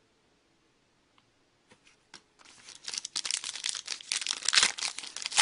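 Hockey card pack wrapper being torn open and crinkled: a few light clicks, then about two seconds in a dense crackling rustle that grows loudest near the end.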